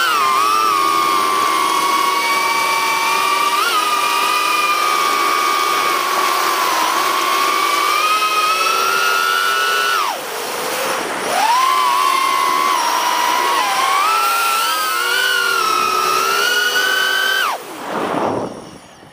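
Brushless motors and propellers of a Holybro Kopis Mini FPV quadcopter whining, the pitch rising and falling with throttle. The whine drops away about ten seconds in, climbs back about a second later, and drops again near the end.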